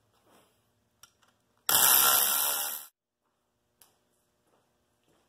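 A power tool runs in one burst of about a second, with a few faint clicks before and after.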